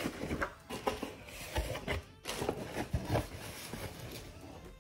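Cardboard shipping box being handled and opened: scattered rubbing, scraping and light knocks of the cardboard.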